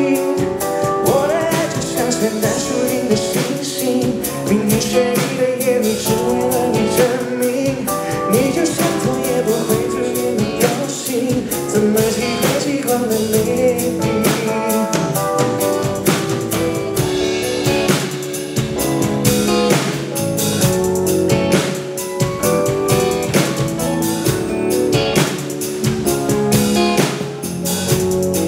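Live pop band playing a Mandarin ballad with keyboard, electric guitar and drum kit, and a male voice singing over it at times.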